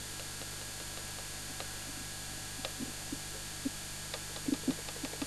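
Steady hiss and low mains hum from the noisy videotape playback, with a few faint clicks as the small front-panel buttons of a video recorder are pressed.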